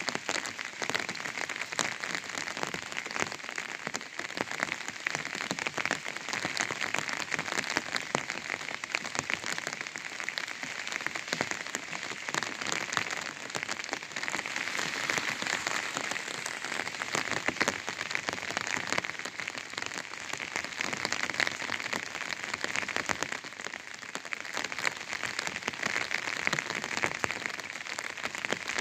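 Rain falling on an umbrella: a dense, steady patter of drops hitting the canopy.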